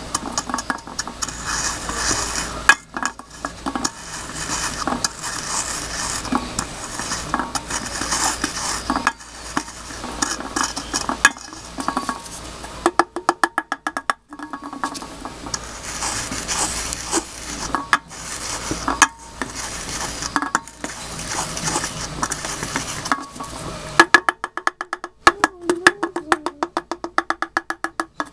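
A pestle grinding and stirring powdered potassium permanganate and sulfur inside an open-topped aluminium drink can, with steady scraping and grating. About halfway through, and again over the last few seconds, it breaks into bursts of quick, rapid strokes.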